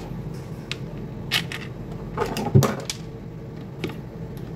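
A screwdriver and hands working on the white plastic housing of an air-conditioner condensate pump as its single cover screw is put in: a few separate plastic clicks and knocks, the loudest about two and a half seconds in.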